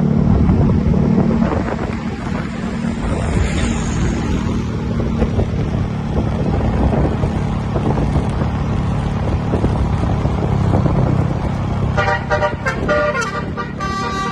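A bus engine running with a steady low rumble; about twelve seconds in, a Basuri 'telolet' musical bus horn begins sounding a string of high, stepping tones that go on to the end.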